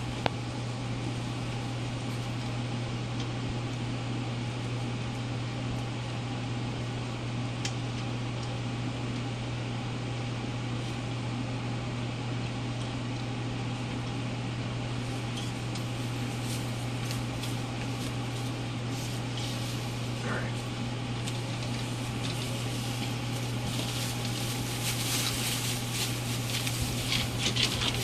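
Rottweiler puppies' paws rustling and crinkling through shredded newspaper bedding over a steady low hum, the rustling getting busier in the last few seconds as the puppies move about more.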